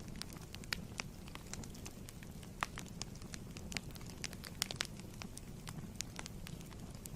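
Fireplace wood fire burning: a steady low rumble of flames with irregular crackles and sharp pops.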